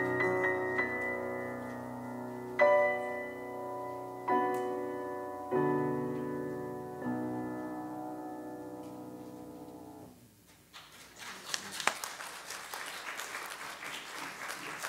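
Grand piano playing slow, sustained chords, each struck and left to ring down, the last one dying away about ten seconds in. Applause from the congregation follows.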